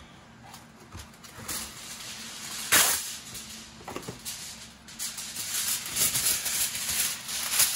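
Plastic cling wrap crinkling as it is stretched around a disposable aluminium pan, with one short loud crackle about three seconds in; from about five seconds in, denser crinkling and rustling as a sheet of aluminium foil is handled.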